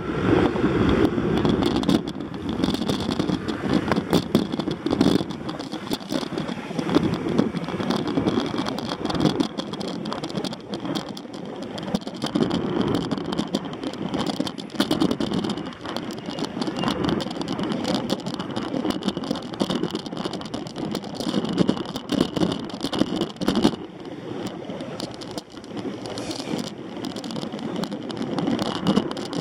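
Wind and road noise on a moving action camera's microphone, swelling and falling unevenly, with frequent small knocks and rattles.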